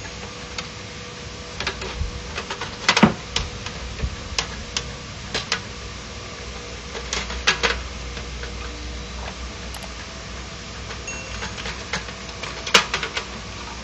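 Irregular clicks and knocks of hard plastic against the sheet-metal frame of an HP LaserJet 1010 printer as a plastic assembly is handled and fitted by hand. The sharpest knock comes about three seconds in, with another near the end.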